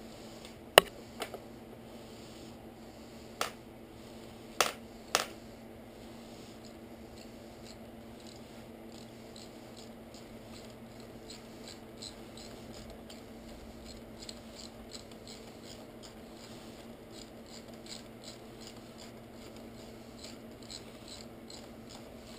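Hands fitting the ignition switch and its wiring on a 1996 Kawasaki ZX600. About five sharp clicks and snaps of parts come in the first five seconds, then faint scratching and light ticks, all over a steady low hum.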